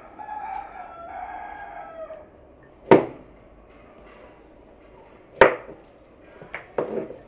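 A rooster crows once, a call of about two seconds that drops in pitch at the end. Then a knife chops vegetables on a cutting board in a few sharp, unevenly spaced strokes, the loudest sounds.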